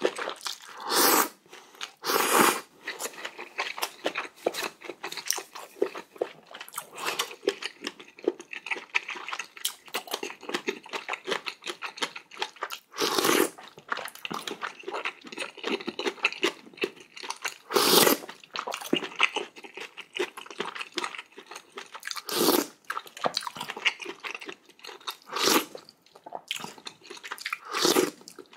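Close-miked eating of spicy ramen and kimchi: steady wet chewing and crunching, broken by about seven louder noodle slurps.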